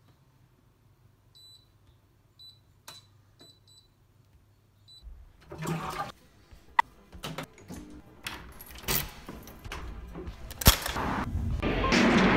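Toilet cistern flushed with its push button: clicks and knocks, then water rushing, growing louder toward the end. A few faint high ticks come before it.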